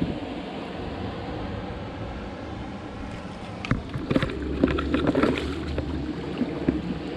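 Steady rush of flowing creek water. About halfway through, a cluster of short clicks and knocks comes in along with a brief low rumble, then scattered knocks.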